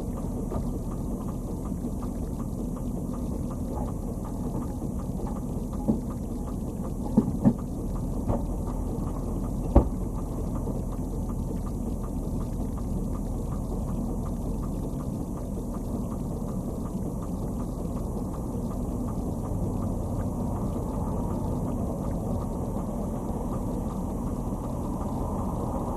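Tow truck idling, heard from inside its cab as a steady low rumble, with a few sharp ticks about six to ten seconds in.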